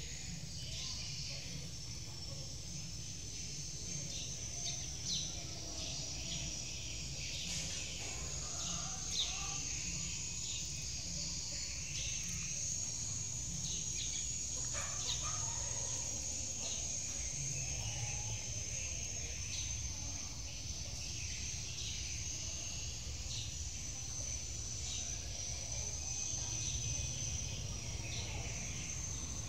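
Outdoor ambience: a steady high-pitched insect chorus, with scattered short bird chirps and a low rumble underneath.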